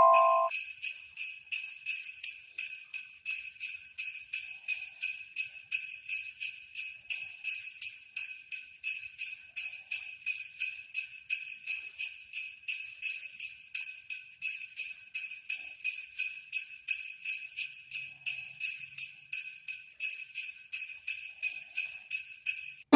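Sleigh bells jingling in a steady, even rhythm, about two shakes a second.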